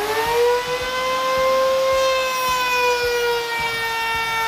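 Handheld router mounted under the table-saw router plate, just switched on: its pitch sweeps up within a split second, then holds a steady high whine at full speed.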